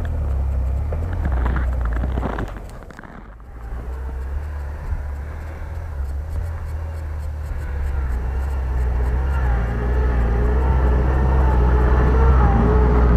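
Off-road SUV engine running under load on a snowy track, with a steady low rumble. It dips briefly about three seconds in, then grows louder with a wavering pitch toward the end as the vehicle comes closer.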